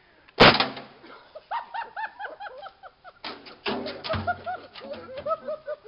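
A 5-gallon water jug Works bomb (toilet bowl cleaner and aluminium foil sealed inside) bursting with one sharp, loud bang about half a second in. It is followed by a string of short, repeated rising-and-falling calls and a few more knocks and thumps.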